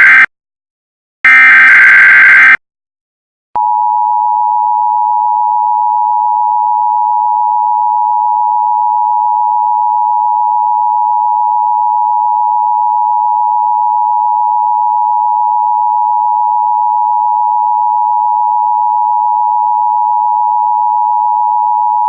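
Emergency Alert System tones: the end of one raspy digital SAME header burst, then a second burst about a second later. After a short pause, about three and a half seconds in, the steady two-tone attention signal starts and holds without change.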